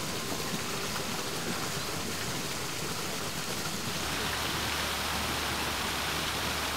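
Park fountain jets splashing into the basin: a steady rush of falling water, a little louder from about four seconds in.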